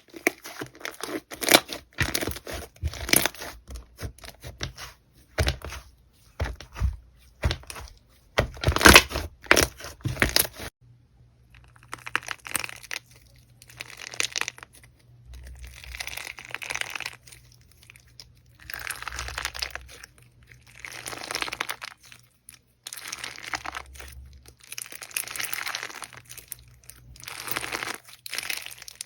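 Hands squeezing and poking slime: dense crackling and popping for about ten seconds, then slower squishy swells roughly every two seconds.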